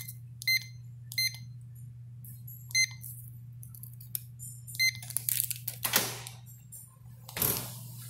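Electronic keypad door lock beeping once per button press, five short high beeps spread over the first five seconds, over a steady low hum. Rattling and knocking follow, then a louder clunk near the end as the shower-room door is opened.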